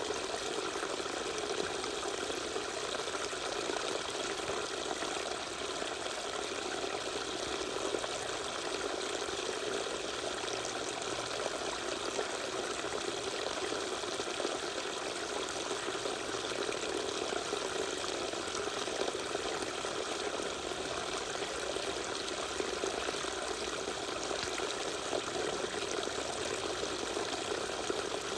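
Small waterfall pouring and splashing steadily.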